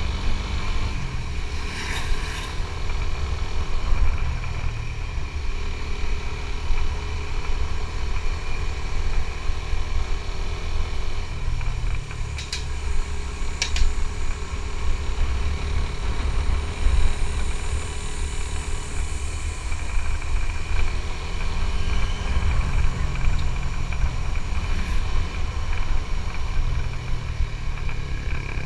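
Suzuki GSX-S150's single-cylinder four-stroke engine running steadily under way, with a heavy low wind rumble on the microphone and a few brief clicks.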